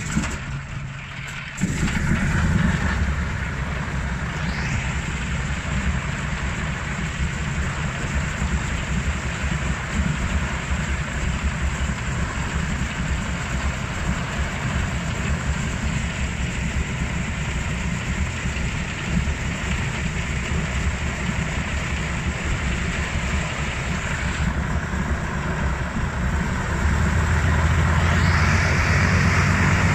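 The nine-cylinder radial engine of an Antonov An-2 biplane running on the ground with a steady, rough rumble. It comes in abruptly about a second and a half in and gets louder near the end.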